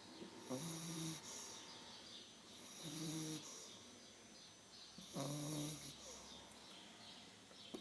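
Beagle puppy snoring in deep sleep: three short snores, about two and a half seconds apart.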